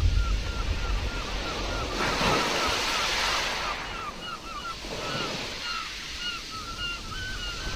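Nature-sounds recording of surf washing in, swelling and fading twice, with a steady run of short chirps, about three a second, over it.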